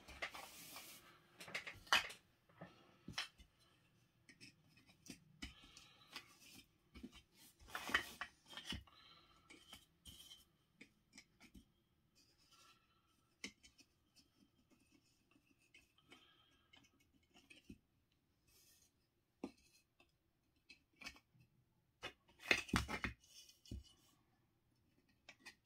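3D-printed plastic terrain tiles being handled and fitted together: scattered light clicks and knocks of plastic on plastic, with a few louder bouts of clattering about two seconds in, about eight seconds in and near the end.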